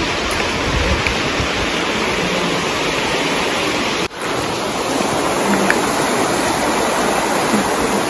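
Steady rushing of a shallow river running over rocks, with some low rumbles near the start and a brief dropout about four seconds in.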